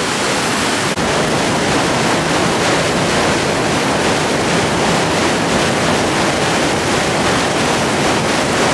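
Loud, steady rush of whitewater rapids: an even, unbroken noise of fast-moving river water.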